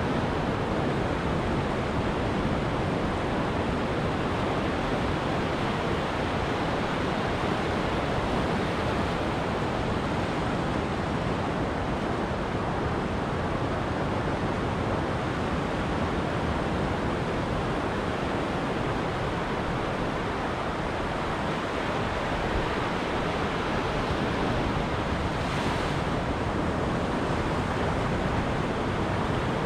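Ocean surf washing onto a beach: a steady, unbroken rush of waves with no single breaker standing out.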